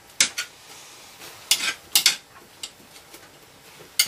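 Kitchen knife knocking and clicking against a hard cutting board as cooked chicken is cut up and pulled apart. There are a few sharp knocks in the first two seconds and another near the end, with quiet handling in between.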